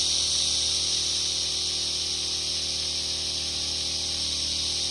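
Steady hiss of a water stream spraying from a blue washdown gun nozzle at full flow, fed by a Predator 1-inch gas water pump, with a faint steady low hum beneath.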